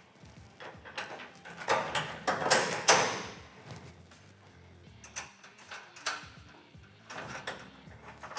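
Metal clicks and knocks from a gas strut being fitted onto its bracket on a steel roll cage, with a cluster of louder clanks about two to three seconds in, then scattered lighter clicks.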